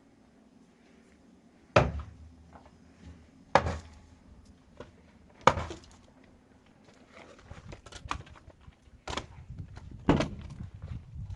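A series of sharp knocks: five loud ones at irregular gaps of one to two seconds, with lighter clicks and shuffling in between.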